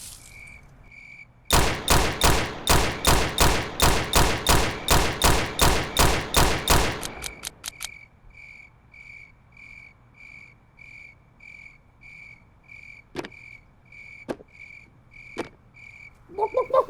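A fast run of about twenty loud gunshots, roughly four a second, lasting about five seconds, over crickets chirping steadily. Three single sharp clicks follow several seconds later.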